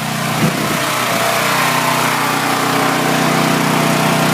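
A generator's engine running steadily under load, getting a little louder in the first second or so, with wind noise over it.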